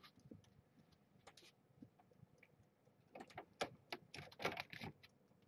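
Faint clicks and taps of a wire pet pen as it is closed, with a quick cluster about three seconds in.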